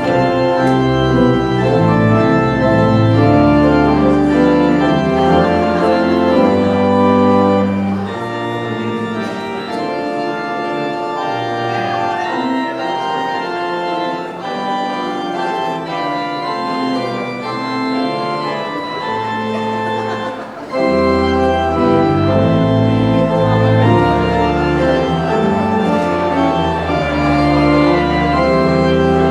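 Church organ playing a postlude of held chords after the dismissal. The deep bass notes drop out about a quarter of the way in, and the music comes back fuller and louder with them about two-thirds of the way through.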